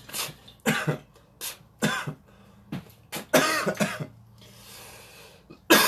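A man coughing and clearing his throat in a run of short bursts, followed by a soft steady hiss lasting about a second and a half near the end.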